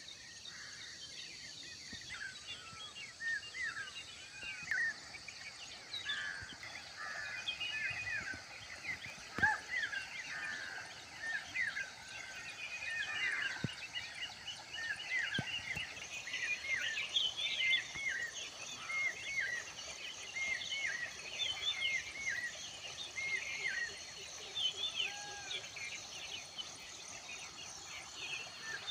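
Many short, hooked chirps overlapping from a number of birds calling, over a steady high insect drone that grows louder about halfway through. A single knock about ten seconds in.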